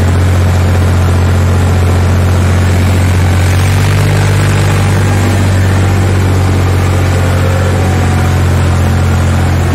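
Farm tractor engine running steadily as the tractor drives along, a loud, even low drone that rises slightly about four seconds in.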